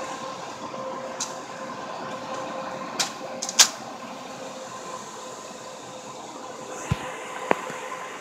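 Dell PowerEdge 1900 tower server running after boot, its cooling fans giving a steady whir with a constant hum in it. A few sharp knocks cut through, the loudest about three and a half seconds in, with two more near the end.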